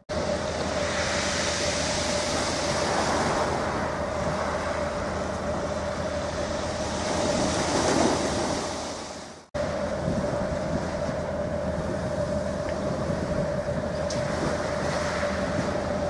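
Ship's diesel engines droning steadily, with a constant mid-pitched whine over a low hum and a hiss of wind and water. The sound cuts out for an instant about nine and a half seconds in, then resumes.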